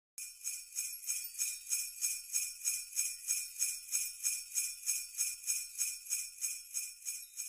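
Jingle bells shaken in a steady rhythm, about three shakes a second, as in the opening of a Christmas song.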